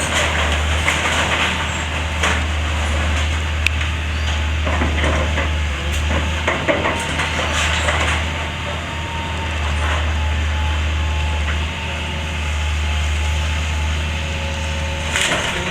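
Hitachi excavator's diesel engine running steadily while it pulls down a timber house, with scattered cracks and crunches of breaking wood and plaster.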